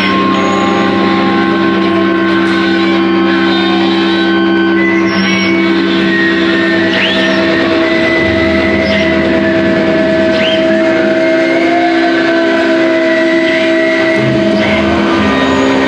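An ensemble of electric guitars playing a noise improvisation: a loud, dense wall of sustained droning tones, with short rising squeals breaking out every few seconds.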